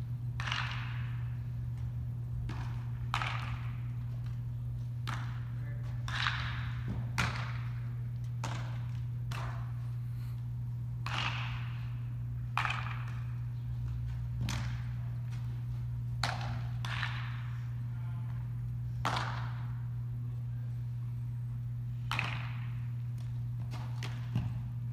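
Baseball fielding drill: sharp cracks of a bat hitting balls and balls smacking into leather gloves, about a dozen spaced every couple of seconds, each echoing in a large indoor hall. A steady low hum runs underneath.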